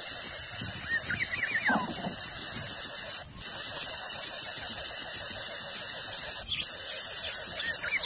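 Greater coucal nestling squealing: a quick run of short rising squeaks ending in a falling squeal, about a second in and again near the end. Behind it runs a loud, steady high-pitched hiss.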